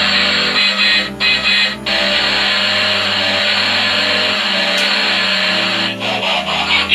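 Battery-powered transforming toy truck running: its small motor and plastic gears whir steadily, with music underneath. The whir cuts out briefly twice, about a second in.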